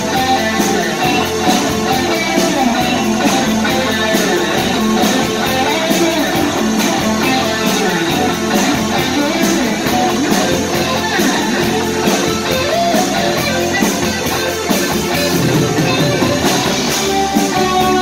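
A live new wave rock band plays an instrumental passage: electric guitars, bass, keyboard and a steady drum beat.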